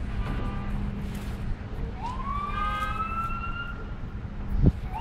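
Emergency vehicle siren wailing, rising slowly in pitch in one long sweep from about two seconds in, over a steady low rumble.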